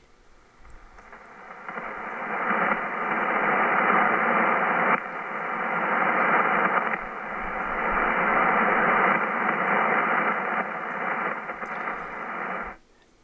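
Hiss of atmospheric band noise from an Icom IC-7300 HF receiver on the 40-meter band in lower sideband, trimmed to the narrow voice passband of its filter. It swells in over the first couple of seconds and stops abruptly near the end. There is no pulsating 120 Hz power-line buzz in it: only the normal background noise, now that the power line interference has been cleared.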